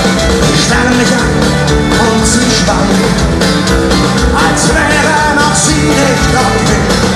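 Live folk-metal band playing loud on stage: electric guitars and violin over drums and cymbals, with a melodic line winding above. Recorded from within the audience.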